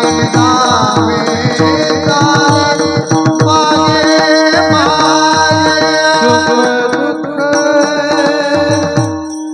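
Marathi devotional kirtan music: singing over steady held notes, with quick hand-drum strokes keeping the rhythm.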